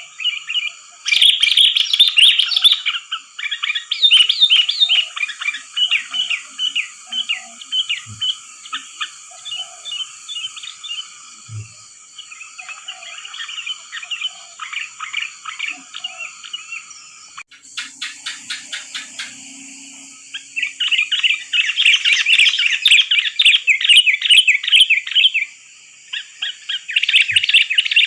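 Sooty-headed bulbuls (kutilang) chattering and calling in busy, overlapping bursts, as played for a bird-lure recording. The calls thin out in the middle and come back loud near the end, over a steady high-pitched whine.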